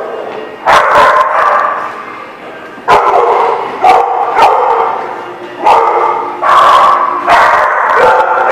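Dogs barking in play as they wrestle: about eight loud, sharp barks at uneven intervals, each echoing in a hard-floored room.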